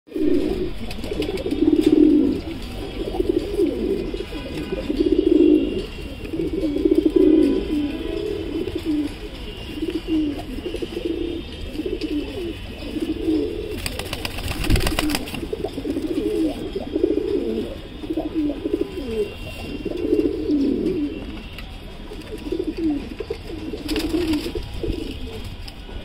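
Domestic pigeons cooing over and over in low, rolling coos, about one every one to two seconds, a courting pair's calls. About halfway through there is a brief burst of wing flapping as one pigeon mounts the other.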